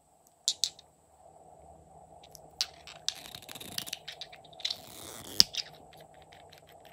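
Glass nail polish bottle handled and its screw cap twisted off: sharp clicks as the bottle knocks against the tray and the other bottles, and two spells of gritty scraping as the cap turns on the glass neck. A loud click comes near the end.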